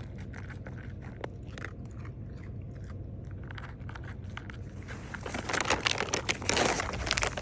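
A dog crunching and chewing a dry treat, the crunching coming in a dense run about five seconds in.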